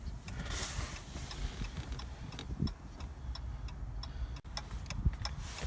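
Hazard-light flasher ticking steadily in the car's cabin, about three ticks a second, over a low rumble.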